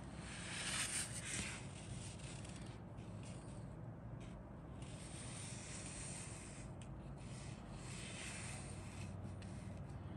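Paper rustling and rubbing as hands handle and slide the pages of a model kit's instruction booklet, loudest about a second in.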